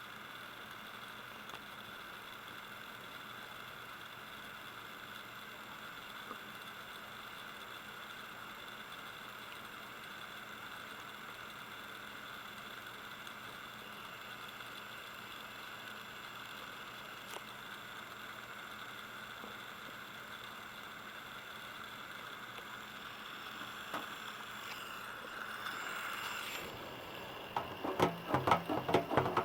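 Western Digital WD20EARX 3.5-inch hard drive spinning with a steady whine, then a rapid run of loud clicks and knocks near the end: an abnormal drive noise that the owner takes for the heads probably striking the platters.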